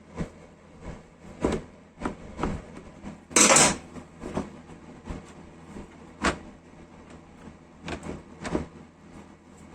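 Hand work on an old belt sander: irregular knocks and clicks of metal parts being handled, with one louder, short scraping burst about three and a half seconds in.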